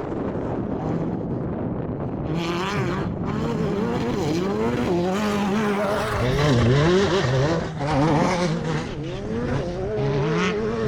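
Class 10 off-road race car's engine being driven hard, its pitch rising and falling quickly over and over as the throttle is worked on and off.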